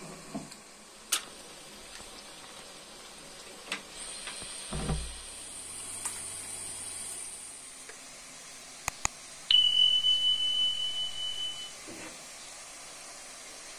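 Kitchen handling at a gas stove: light knocks and clicks, a dull thud about five seconds in, and a soft hiss as salt is poured into a pot of water. After two sharp clicks, a loud, high, steady beep sounds for about two seconds and fades out.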